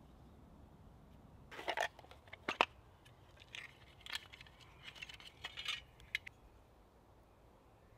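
Small metal survival tin and its contents being handled: a run of light metallic clinks, knocks and rattles as the tin is opened and a small screw-top aluminium container and a metal clip knock against it, the sharpest knock about two and a half seconds in.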